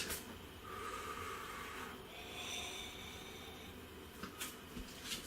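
Faint nasal breathing, with a few soft clicks in the last second and a half.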